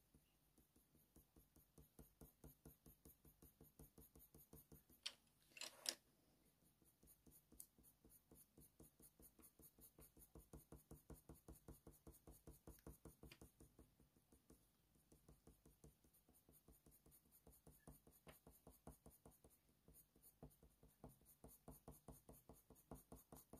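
Faint, rhythmic scratching of a Faber-Castell Polychromos coloured pencil shading on hot-press watercolour paper, several short strokes a second. A couple of brief knocks come about five to six seconds in.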